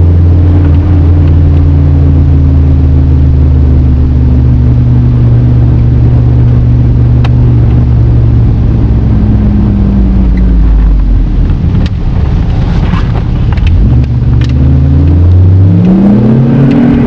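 VW Passat G60's supercharged four-cylinder engine, breathing through a Pipercross sport air filter in a drilled airbox, with its revs slowly dropping for about ten seconds. A few sharp clicks follow, then the engine revs up again near the end.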